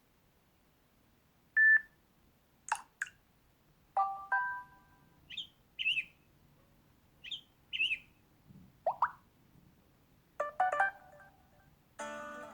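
Samsung Galaxy J5 built-in notification sounds previewed one after another through the phone's speaker: a run of short electronic beeps, chimes and quick chirping sweeps, each under a second long with a pause between. A longer multi-note chime begins near the end.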